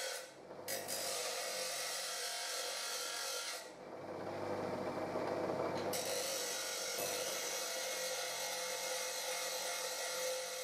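Nu Tool bench grinder's wheel grinding the end of a steel bar clamp's guide bar to cut away its notch: a steady hissing grind over the motor's hum. It breaks off briefly shortly after the start and dips about three and a half seconds in, as the steel comes off the wheel.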